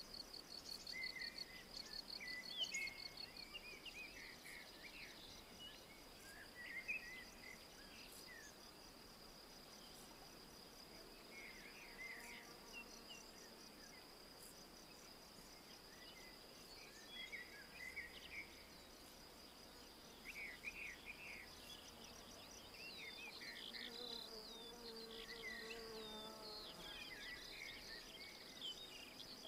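Faint woodland ambience: an insect's high, continuous trill, rapidly pulsed in the first few seconds. Songbirds give short chirps and twittering calls at intervals, busiest near the end.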